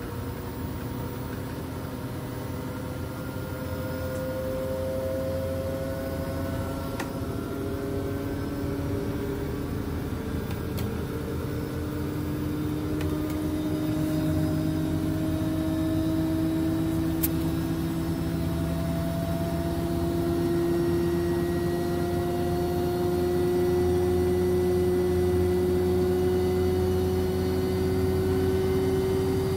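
Beko front-loading washing machine running with water in its turning drum: a steady motor hum with several whining tones that rise slowly in pitch. It grows a little louder in the second half.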